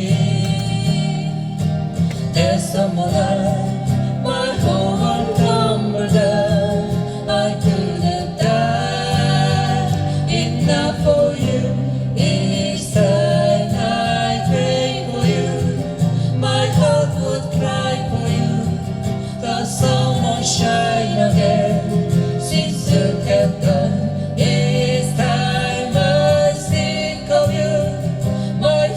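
Acoustic guitar accompanying a singing voice in a slow ballad, played live.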